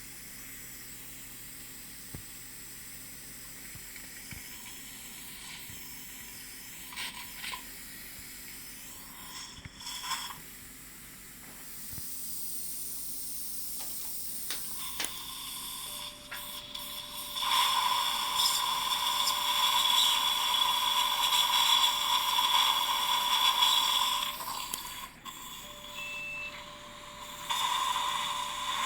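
Implant surgical drill handpiece turning through a surgical guide, a steady whine over water-spray irrigation hiss. It runs in two stretches, stopping briefly about 25 seconds in and starting again near the end, after a quieter first half of low hiss.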